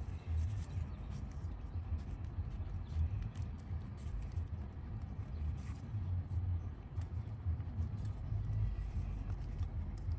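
Faint small clicks and rustles of fingers working an ignition coil's wiring connector loose, over a steady low rumble.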